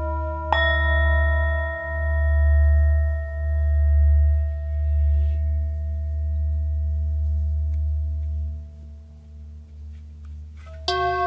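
Ambient background music of long-ringing struck bell tones over a low, steady drone. One tone is struck about half a second in and rings on, slowly fading, and a new tone is struck near the end.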